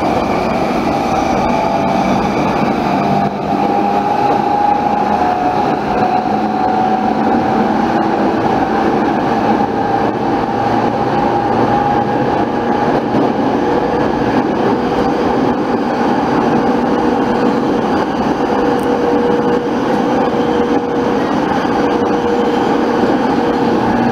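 Saikyo Line commuter train running at speed, heard from inside the carriage: a steady rumble of wheels on rail with a steady whine over it.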